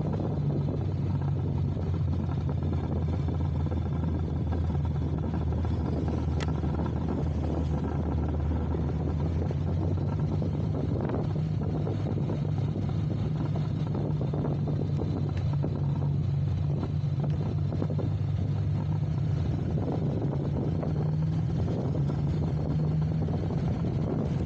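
Vehicle engine running steadily under way, with a constant low drone mixed with road and wind noise.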